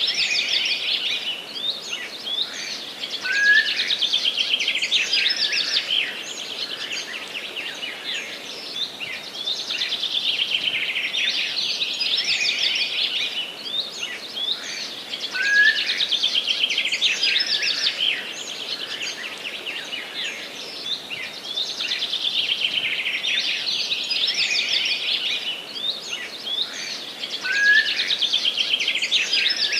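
Songbirds singing in a dense forest chorus of rapid high chirps and trills, swelling louder about every six seconds. A short rising note recurs every twelve seconds, and the same stretch of song seems to repeat on a loop.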